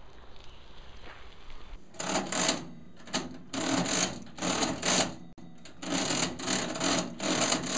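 Old mechanical cash register being worked, its keys and mechanism clattering in a run of short rattling bursts starting about two seconds in.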